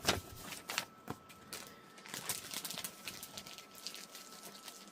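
Hands handling the papers and pieces of a cross-stitch kit: irregular rustling and light taps, sharpest at the very start and again just under a second in.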